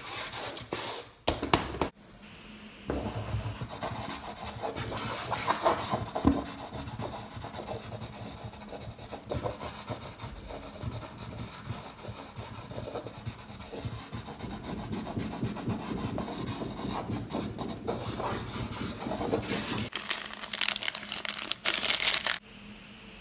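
Charcoal scraping and rubbing across drawing paper in quick back-and-forth strokes, a dry rasping scratch. The strokes are loudest in the first two seconds and again in a burst near the end, with steadier scribbling in between.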